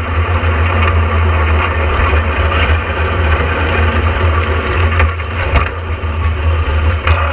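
Cabin noise of a Talbot Sunbeam rally car under way on a wet stage: its Vauxhall 2.0 four-cylinder engine gives a heavy steady drone while water spray and grit crackle against the body. Several sharp knocks come through, as the sequential gearbox shifts down from third to second.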